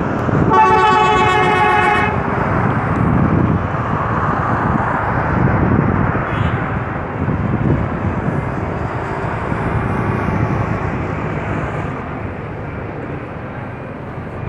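A vehicle horn sounds once, a steady honk of about a second and a half, near the start, over continuous loud outdoor background noise.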